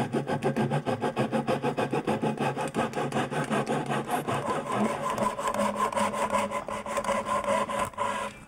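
Japanese pull saw cutting an angled V notch into a wooden board, an angled cut that is partly across the grain and partly a rip cut. The strokes come fast and even, several a second, with a steady ringing tone beneath them. The sawing stops just before the end.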